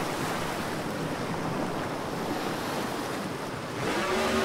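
Steady wash of water and waves. Near the end a jet ski engine comes in, its pitch rising.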